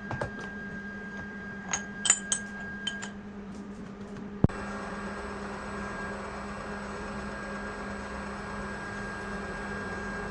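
A machine's electric motor running with a steady hum, with a few light metallic clinks in the first three seconds. About four and a half seconds in there is a sharp click, after which the running noise is louder and fuller.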